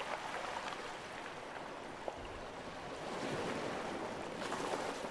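Ocean waves washing on a shore, a steady rushing that swells about three seconds in.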